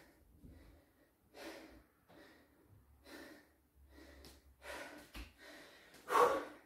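A man breathing hard, panting out of breath after a set of squat jumps, with heavy breaths coming roughly every second or so and the loudest near the end.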